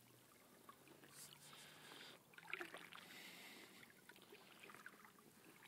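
Faint sloshing of shallow sea water around the legs of someone wading, with a few soft splashes about two and a half seconds in.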